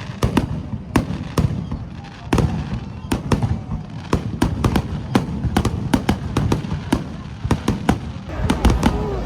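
Fireworks going off in quick, irregular succession: many sharp bangs and crackles, several a second, over a low rumble that gets heavier near the end.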